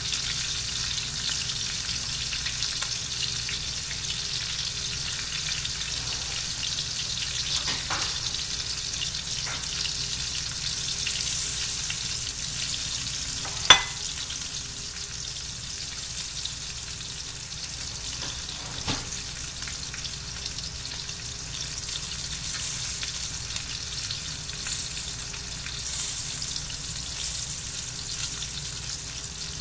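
Fish frying in oil in a stainless steel pan, a steady crackling sizzle, with a few sharp pops; the loudest comes about halfway through.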